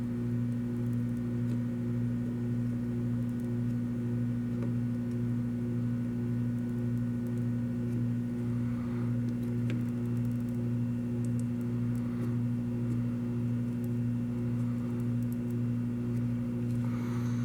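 Steady low electrical hum made of a few constant tones, pulsing slightly and evenly throughout.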